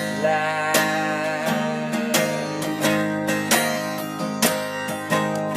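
Acoustic guitar strummed in a steady rhythm, with a voice singing the word 'lass' about two seconds in.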